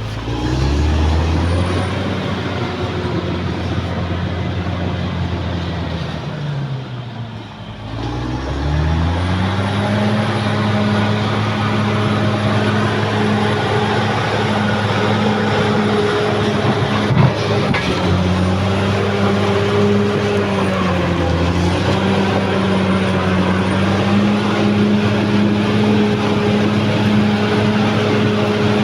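Caterpillar D6R XL bulldozer's diesel engine revving up, easing down to a low point about seven seconds in, then climbing again and holding steady revs with small dips. A single sharp knock about seventeen seconds in.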